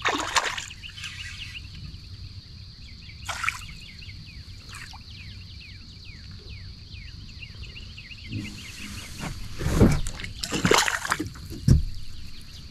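Water splashing and sloshing as a hooked largemouth bass thrashes at the surface beside a kayak, with a splash at the start and the strongest splashes in the last few seconds as the fish is brought in and lifted out.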